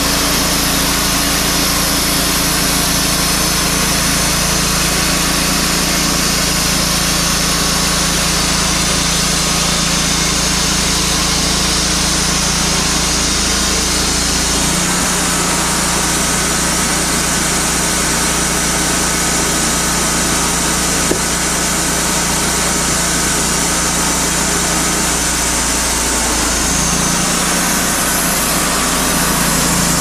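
Wood-Mizer LT40 band sawmill running, its engine working under load as the band blade cuts through a cherry log. About halfway through, the engine note shifts as the blade comes out of the log, and it changes again near the end as the saw head is run back.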